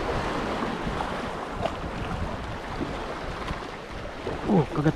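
Steady wind rushing over the microphone with sea surf washing behind it. A short voice sound rises near the end.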